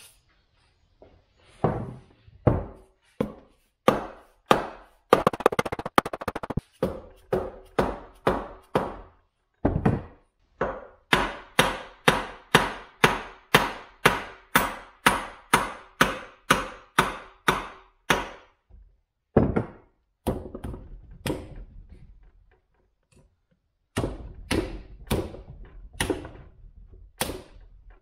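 Repeated heavy blows, about two a second, on the wheel hub and axle of an old riding-mower gearbox, with a metallic ring after each strike, as the stuck wheel is knocked loose. The blows pause briefly, turn to lighter rattling knocks past the middle, then come again a few times near the end.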